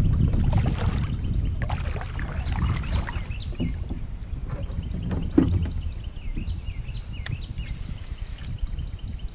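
Outdoor ambience on the water: a steady low rumble with many short, high chirps over it, and one sharp knock about five seconds in.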